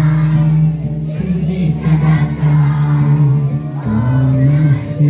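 A group singing a devotional prayer in unison, with long held notes that glide slowly between pitches.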